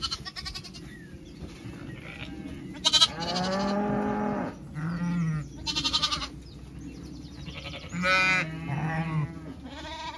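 Zwartbles ewes and lambs bleating back and forth: deep, drawn-out ewe calls, the longest about a second and a half in the middle, answered by higher, shorter lamb bleats near the start, about six seconds in and again near the end.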